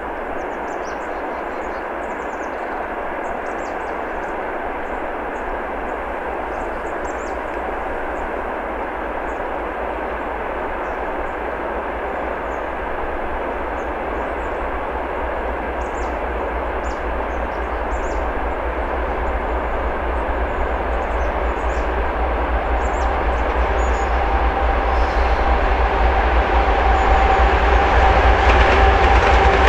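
Twin-section 2TE10MK freight diesel locomotive approaching at the head of a freight train, its diesel engines running under power with a deep rumble that grows steadily louder as it nears. A steady whine rises out of the noise near the end as the locomotive draws close.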